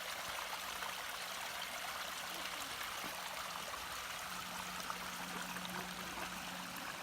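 Small mountain creek flowing over rocks: a steady rush of water.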